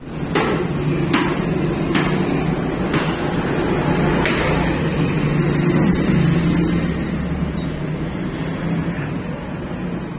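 Cleaver chopping meat on a wooden stump block: five sharp knocks about a second apart, stopping about halfway through. A steady low hum runs underneath.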